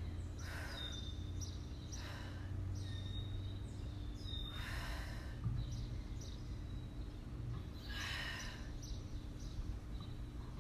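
A woman's breathing during bridge leg lifts, with a short, forceful exhale about every two to three seconds, over a steady low hum.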